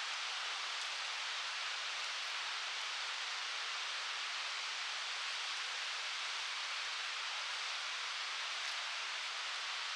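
A waterfall rushing steadily, a constant hiss of falling water with no change or break.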